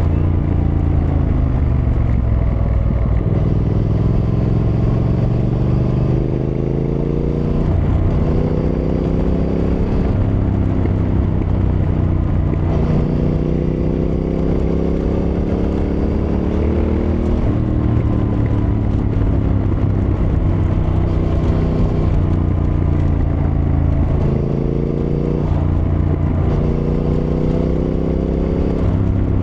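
Triumph Thruxton R's 1200 cc parallel-twin engine under way, pulling up through the gears three times, its pitch climbing in steps with short breaks at the shifts, then falling away as the throttle closes in between.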